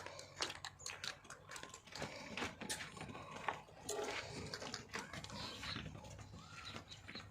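Beetal goats moving about in a pen: a run of irregular clicks, taps and knocks from hooves and bodies, with a faint animal sound near the middle.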